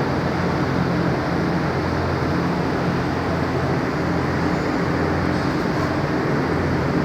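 Electric pump motor of a hydraulic hose crimping machine running with a steady, even hum.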